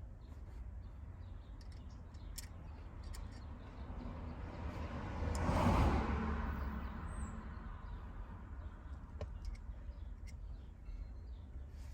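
A vehicle passing by: broad road noise swells to a peak about halfway through and fades away, over a steady low rumble. A few faint clicks are heard now and then.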